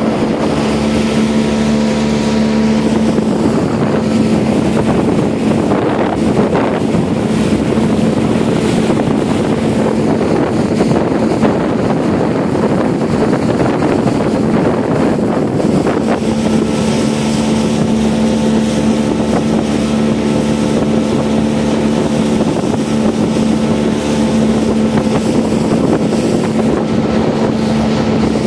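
Motorboat engine running steadily under way, a constant low hum over the rush of water along the hull and wind on the microphone. For a few seconds around the middle, the wind and water noise swells and partly drowns the engine hum.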